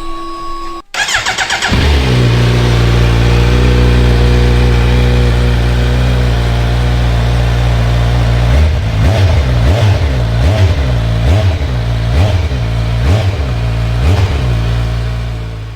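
Kawasaki Z900's inline-four engine cranked on the electric starter and catching about two seconds in, then idling steadily. From a little past halfway it is blipped on the throttle about eight times in quick succession, each rev rising and falling back to idle.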